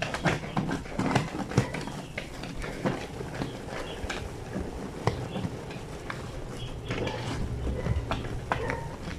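Fleece sheets being hand-washed in a granite washboard sink: wet fabric rubbed and slapped against the stone, with irregular knocks and wet splashes.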